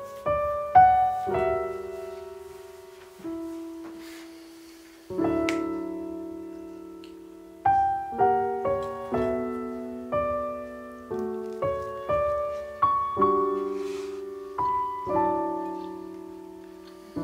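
Background piano music: a slow melody of single notes and chords, each struck and left to ring and fade.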